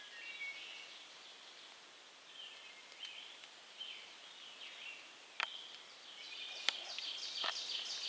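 Several songbirds singing and chirping in spring woodland, busier near the end, with three sharp clicks in the second half.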